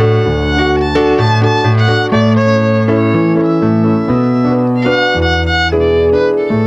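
Violin playing a bowed melody over an accompaniment with a low bass line that moves to a new note every half second or so.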